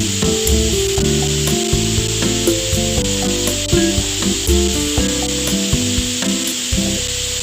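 Background music with a melody and a light beat, over a steady hiss.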